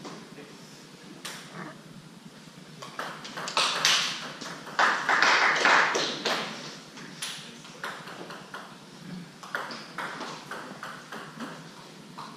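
Table tennis ball bouncing on the table and struck by bats in play: a run of sharp, irregularly spaced taps. A louder rush of noise from the hall rises about five seconds in.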